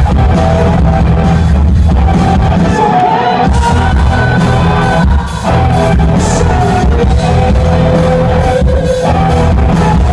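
Rock band playing live through a hall PA, with a sung lead vocal over loud bass, drums and guitars, in a distorted, overloaded audience recording; the sound dips briefly about five seconds in.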